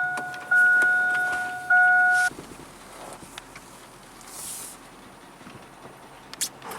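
A car's electronic warning chime: a steady two-note tone that restarts twice and stops about two seconds in. After it only faint cabin background remains, with a single click near the end.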